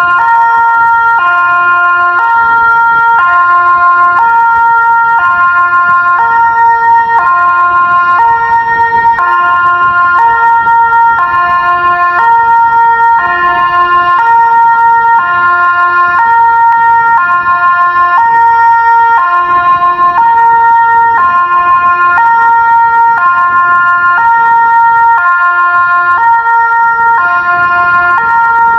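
Delta 6 siren sounding a loud two-tone signal, switching abruptly between a high and a low tone about once a second.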